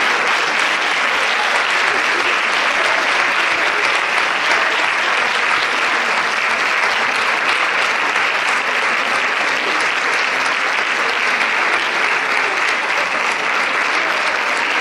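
Theatre audience applauding steadily through a curtain call.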